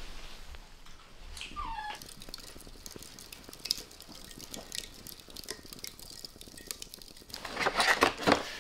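A small poodle gives one short falling whine about a second in. Faint scattered crackling ticks follow while charcoal burns, then a cardboard takeout box is handled and opened, loud rustling and clicking, near the end.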